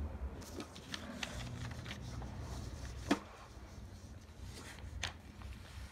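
A sheet of paper being handled and slid across a table, with light rustling and small taps, and two sharper taps about three and five seconds in.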